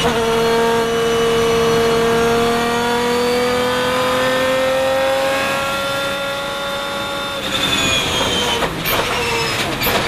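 Lamborghini Murciélago R-SV GT1's 6.5-litre V12 heard from inside the cockpit, pulling hard in a high gear with the revs climbing slowly. About seven and a half seconds in the driver lifts off, the steady note breaks up, and a couple of sharp pops follow.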